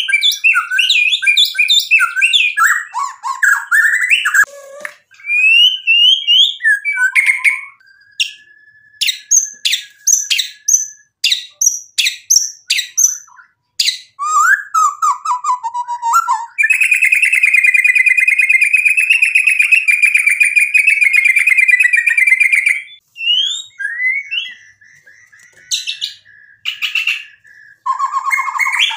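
White-rumped shama singing a varied song of whistled phrases and sharp clicking notes, with one long rapid trill lasting about six seconds in the middle.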